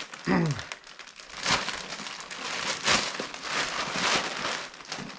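Thin clear plastic packaging bag crinkling and rustling in irregular bursts as it is pulled open and off a backpack by hand.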